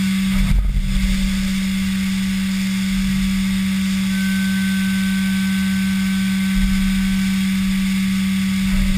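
Haas VF-3 CNC vertical mill cutting aluminium with an end mill under flood coolant: a steady hum from the spindle and cutter over the hiss of spraying coolant, with a low rumble swelling up three times.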